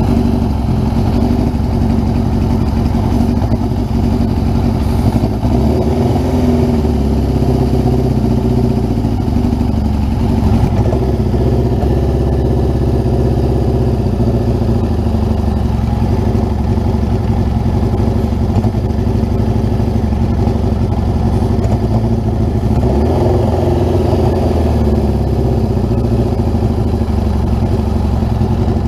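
Suzuki GS550's air-cooled inline-four engine idling, its note shifting slightly a few times. The engine has an air leak at a carburettor intake rubber and a hole in the exhaust.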